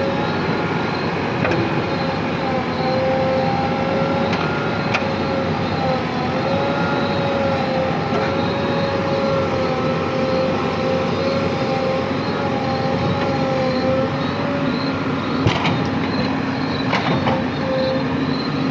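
JCB 3DX backhoe loader's diesel engine running steadily under load, with a wavering whine over it and a couple of short knocks near the end.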